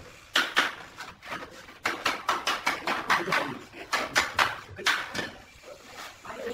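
Irregular run of sharp taps and knocks on a large ceramic wall tile as it is set in place, thinning out about five seconds in.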